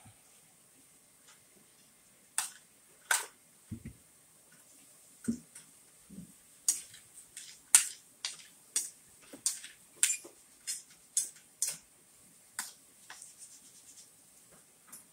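Spoon and fork clicking and scraping against a china plate in quick, irregular strokes as rice is scooped up, with a few dull low knocks in between.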